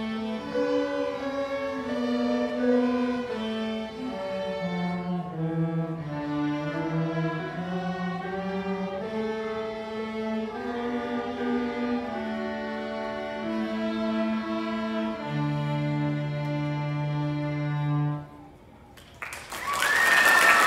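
School string orchestra of violins, cellos and double bass playing the closing bars of a march, ending on a long held low chord. After a brief pause, applause breaks out near the end.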